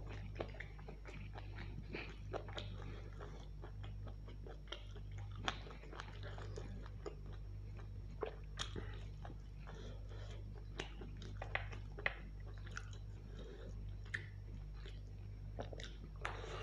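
Close-up chewing and biting of mutton curry, with wet mouth smacks and many short sharp clicks as meat is pulled off the bone. A steady low hum sits underneath.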